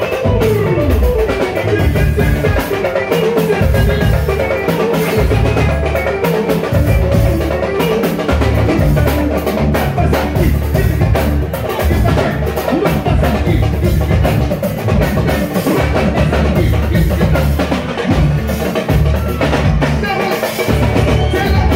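A live band playing: an electric guitar line over bass guitar and a drum kit keeping a steady, driving beat.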